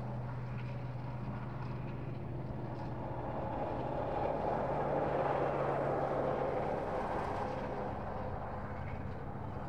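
Distant engine hum, steady and low, growing louder about halfway through and easing off again toward the end.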